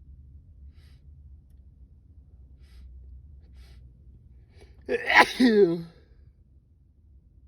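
A man's single loud, induced sneeze about five seconds in, its voiced cry falling in pitch at the end.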